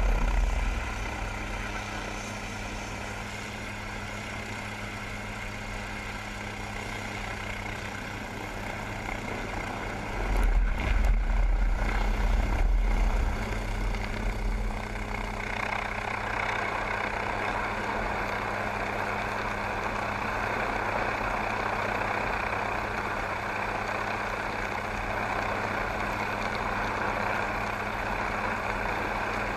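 MQ-8B Fire Scout unmanned helicopter running, its turbine and rotors making a steady drone with a fixed low hum. A stretch of low rumbling comes about ten seconds in, and the drone grows louder and hissier from about halfway through.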